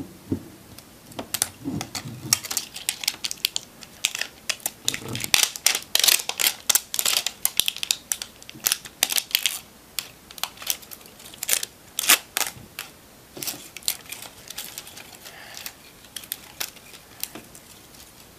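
Plastic wrapping of an LOL Surprise ball crinkling and crackling in irregular bursts as it is picked and torn at, busiest in the middle and thinning out toward the end; the layer is stubborn and hard to open.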